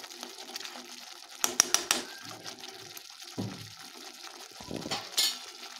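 Spice masala frying gently in a steel kadai with a low, steady hiss. About one and a half seconds in, a quick run of sharp clinks of a steel spoon against the pan; a few softer knocks follow later.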